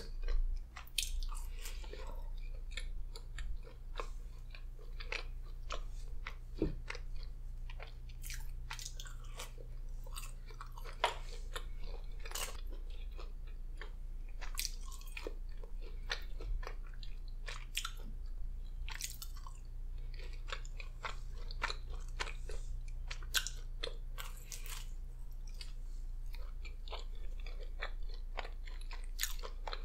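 Close-up chewing and biting as pizza and seasoned fries are eaten, with many small sharp, irregular mouth clicks and crunches over a steady low hum.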